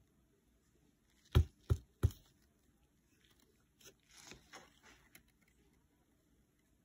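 Three sharp thumps in quick succession about a second in, followed by softer scraping and scuffling.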